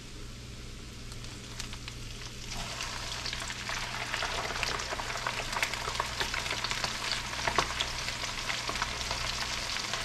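Hot oil sizzling and crackling as a whole catfish is lowered into a wok for deep frying. The sizzle swells about two and a half seconds in and keeps crackling with many small pops.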